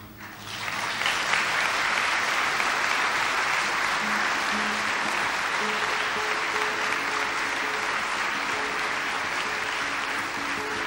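Concert audience applauding, swelling up within the first second and then holding steady. From about four seconds in, a few picked acoustic guitar notes sound faintly under the clapping.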